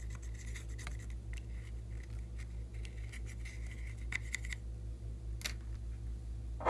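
Pressed eyeshadow being scraped and crumbled out of a plastic makeup palette, a run of dry scratching and crackling clicks that stops about two-thirds of the way through. A single sharp click follows, then a louder knock right at the end, over a steady low hum.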